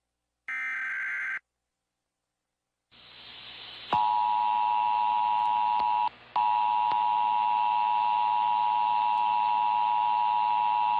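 Emergency Alert System test audio: a one-second burst of the SAME header's data tones, then a second and a half of silence. A rising hiss of static follows, and about four seconds in the steady two-tone attention signal starts over it, dropping out briefly around six seconds in.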